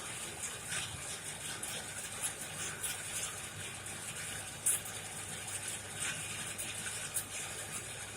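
Coal forge fire burning hot: a steady low hum of air through the fire, with scattered sharp crackles and pops from the burning coal, the strongest about four and a half seconds in.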